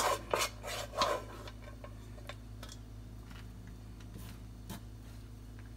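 Light irregular taps and clicks of a plastic rice paddle scooping cooked rice onto a banana leaf, several in the first second and sparser after, over a low steady hum.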